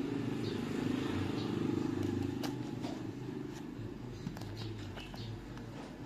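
A parcel being handled and opened: scattered light clicks and crinkles over a steady low hum.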